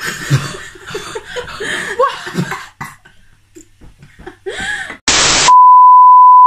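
Two young women laughing, followed by a short burst of TV static and then a loud, steady, high-pitched test-tone beep from a 'technical difficulties' colour-bars screen, which cuts off abruptly.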